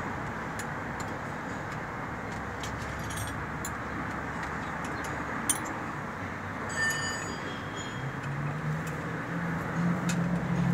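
Scattered small metallic clicks and clinks of hand wrenches on a truck engine's accelerator linkage, over a steady background rumble. A low steady hum comes in near the end.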